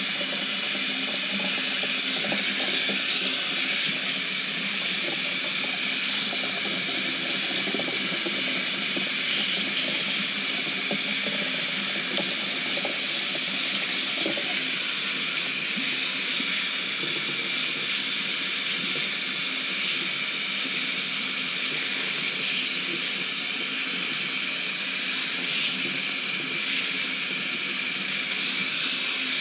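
Kitchen tap running steadily, its stream of cold water splashing onto cooked nopales cactus pieces in a plastic colander in a stainless steel sink.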